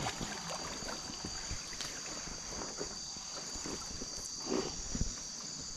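Steady high-pitched chorus of crickets and other night insects. Over it come scattered small knocks and water sounds from handling in a canoe, with two louder thumps about four and a half and five seconds in.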